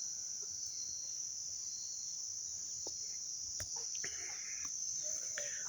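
Insects shrilling in a steady, unbroken high-pitched drone, with a few faint chirps and clicks about four to five seconds in.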